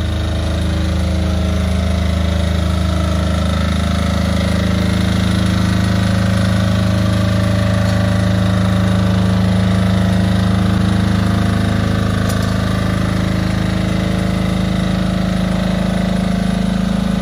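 Onboard diesel generator of a hybrid six-wheeled unmanned ground vehicle running steadily at a constant speed, charging the vehicle's battery.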